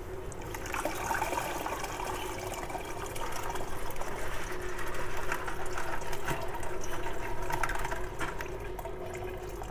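Water and silver sludge poured from a plastic bucket into a plastic colander, splashing and trickling through the mesh as the iron wire pieces are tipped out. The pour grows louder about a second in and eases near the end.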